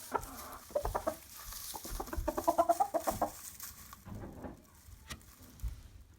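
A chicken clucking: a quick run of short calls, loudest and most rapid about two to three seconds in, with softer scattered clucks around it.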